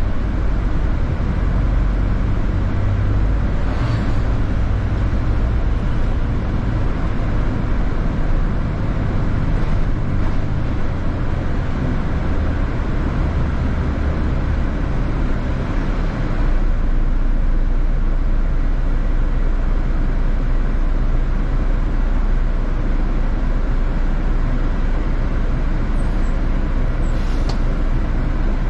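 City bus engine and road noise heard from inside the bus while it drives: a steady low drone with road rumble, the engine note changing about halfway through.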